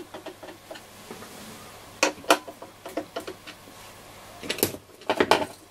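Scattered clicks and knocks of a screwdriver and hands on a transistor radio's case as its case screws are tightened, with a denser cluster of knocks near the end.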